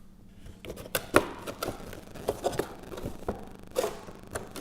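Packaging and accessories being handled: a string of light taps, knocks and rustles, about eight short knocks spread unevenly across a few seconds.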